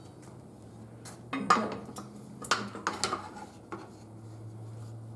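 Metal clanks and clinks of a steel tire tool working against a manual tire changer and steel wheel rim while forcing a truck tire's bead onto the rim. There are a handful of sharp clanks, the loudest about a second and a half in.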